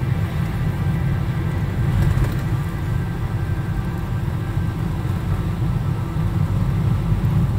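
Steady low rumble of a car driving on a wet road, heard from inside the vehicle, with soft sustained background music.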